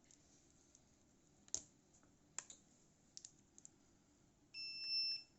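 A few light clicks from handling the multimeter and its probes, then about four and a half seconds in, the multimeter's continuity beeper sounds one steady high-pitched beep lasting under a second, the signal that the probes are bridging a closed circuit.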